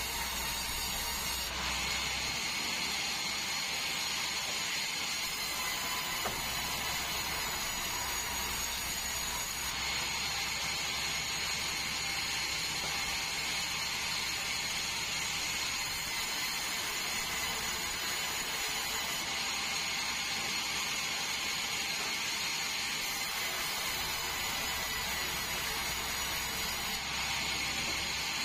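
Band sawmill running steadily, its blade cutting through a large meranti log with a constant high whine over a hiss of sawing. The tone shifts slightly a few times.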